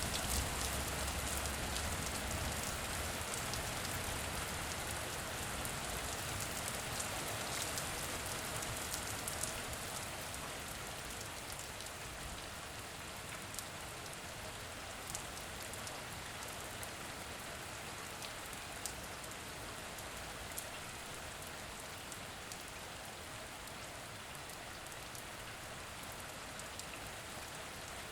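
Steady rainfall, with scattered sharper drop hits standing out from the patter. It eases off somewhat over the first ten seconds or so and then falls evenly.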